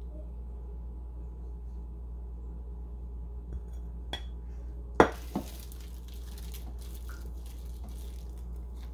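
A sharp clink about five seconds in and a smaller one just after, from the seed plate and plant pot being handled, followed by faint scraping and rustling; a steady low hum runs underneath.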